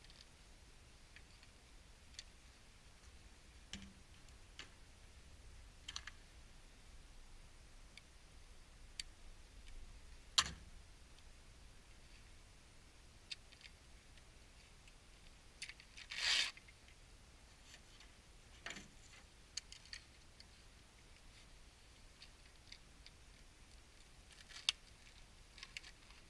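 Handling of a plate carrier as its front placard and magazine panel are unclipped and pulled off: faint, scattered clicks and taps of buckles and fittings, with a half-second rasping sound about sixteen seconds in, the loudest of the stretch.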